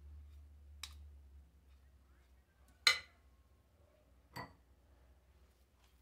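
A spoon or spatula clinks sharply against a glass mixing bowl three times: about a second in, just before three seconds (the loudest), and again after four seconds. A low hum dies away in the first second and a half.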